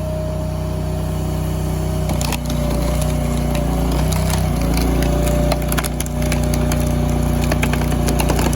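Engine-driven hydraulic log splitter running steadily and coming under load about two seconds in, while a hardwood round cracks and splinters in a series of sharp snaps as the wedge forces it apart.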